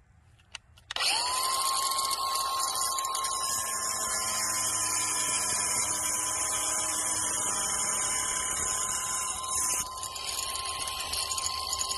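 Angle grinder starting up about a second in and running at full speed while it cuts a white wall tile, a steady high whine over the gritty noise of the blade in the tile. The level dips briefly near the end before the cut carries on.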